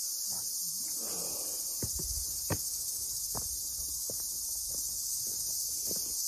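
Steady, high-pitched chorus of insects in tropical forest, with scattered soft knocks and clicks beneath it.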